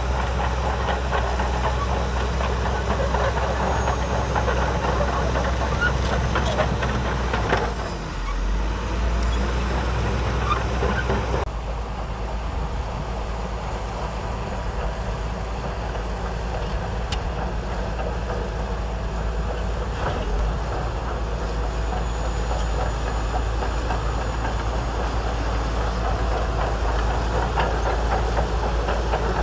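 Shantui DH17C2 bulldozer working: a steady, heavy diesel engine drone with continuous rattling over it. The sound shifts abruptly about eleven seconds in and carries on in the same way.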